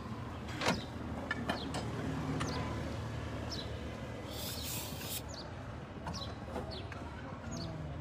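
Diesel engine idling steadily with a fine, rapid pulse, while small birds chirp repeatedly in short high falling notes. A short hiss, lasting under a second, comes about four and a half seconds in.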